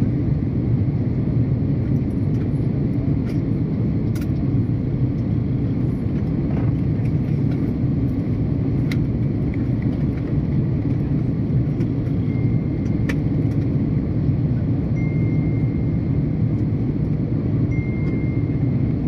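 Steady low rumble of engine and airflow noise inside the passenger cabin of an Airbus A330-200 in flight, heard from a window seat beside the wing.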